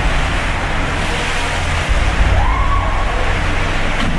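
Water sloshing and surging in a cruise ship's indoor swimming pool as the ship rolls in heavy seas, over a heavy, steady low rumble. A brief tone rises and falls a little after halfway.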